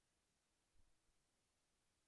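Near silence, with one faint low bump just under a second in.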